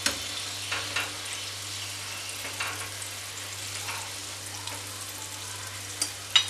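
Maida-battered egg pieces sizzling steadily as they deep-fry in hot oil, with a slotted metal spoon clicking against the pan a few times as the pieces are turned and lifted out.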